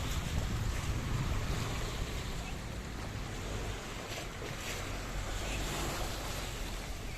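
Sea sound of waves and wind, with a steady low rumble underneath.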